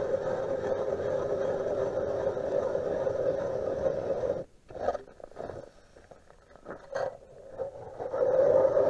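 Ice auger boring through lake ice: a steady grinding as the blades cut, which stops about halfway through, leaving a few knocks and scrapes, then starts again near the end.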